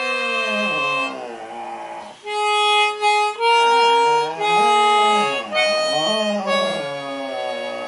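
A boxer dog howls along to an instrument playing held notes. The dog's howls slide and waver in pitch under the steady notes, which change in steps.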